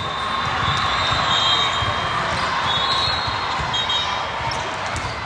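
Busy gymnasium during a volleyball match: a hubbub of crowd voices over balls bouncing and thudding on the court floor. The crowd noise swells about half a second in.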